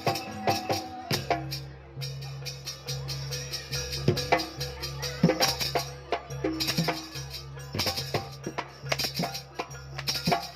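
Jaranan music from a Javanese percussion ensemble: quick drum strokes and rattling percussion over steady low droning tones that come in about a second in.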